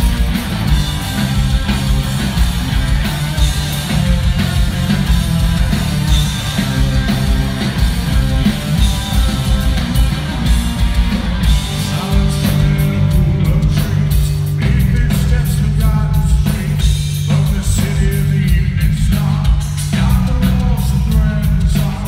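Live rock band playing: drums, bass and distorted electric guitar, with a lead vocal singing over it, heard from the audience.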